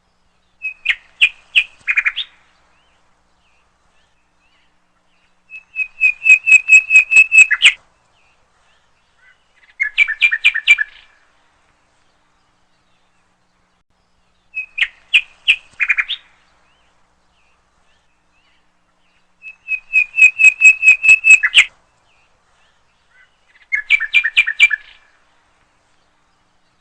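Bird calling in short, rapid trilled phrases of chirps separated by silent gaps of a few seconds. The same sequence of three phrases plays twice, suggesting a looped recording.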